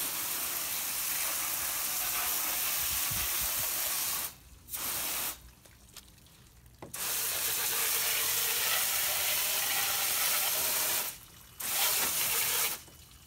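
Garden hose spray nozzle jetting water onto golf cart batteries, rinsing off the baking soda and water mixture used to neutralize terminal corrosion. The spray hisses in several bursts, cutting off briefly about four seconds in, for a second and a half just after, and again near the end.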